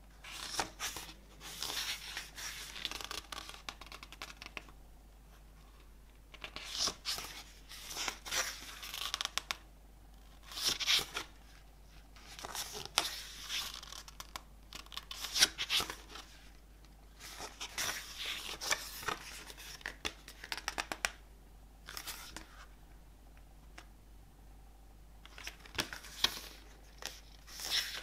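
Album packaging being handled and unwrapped: repeated spells of tearing and crinkling, each a second to a few seconds long, with short quiet pauses between.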